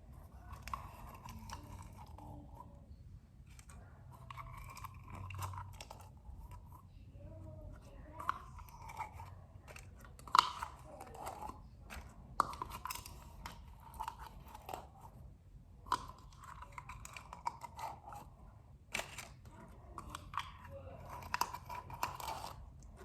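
Slime being squeezed and pulled by hand out of a small plastic container: irregular soft, sticky squelches with scattered sharper clicks and crackles.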